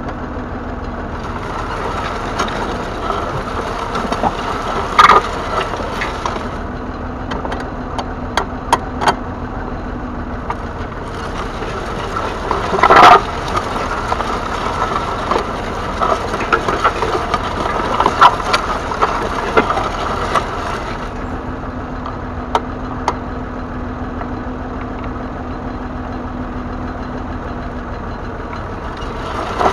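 Massey Ferguson 135's 2.5-litre three-cylinder diesel engine running steadily, with occasional sharp knocks and clatter, the loudest about five and thirteen seconds in.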